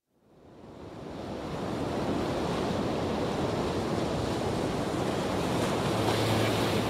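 Sea waves and wind on the microphone, a steady rushing that fades in from silence over the first couple of seconds. Near the end a steady low hum joins in.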